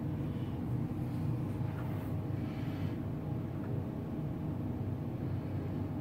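A steady low hum with a faint steady tone above it, unchanging throughout.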